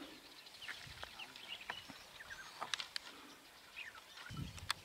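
Faint bush sounds: birds chirping in short calls, with scattered sharp clicks and snaps as a stick-and-sacking treetop shelter is pulled apart. There is a dull thump near the end.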